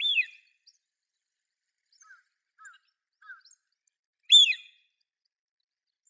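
Drake Eurasian wigeon giving its whistled 'whee-oo' call twice, about four seconds apart, each a short whistle that rises and then falls. Three faint short lower notes come in between.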